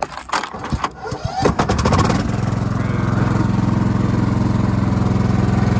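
Stiga Estate ride-on mower's single-cylinder Kohler petrol engine being cranked with the key. It fires unevenly for about two seconds, then catches and settles into steady running.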